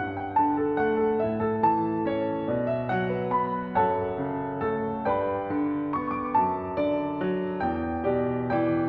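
Background piano music, a steady run of single notes changing about twice a second.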